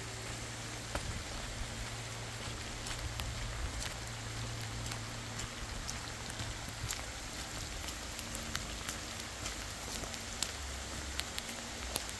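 Steady rain: an even hiss with scattered drops ticking.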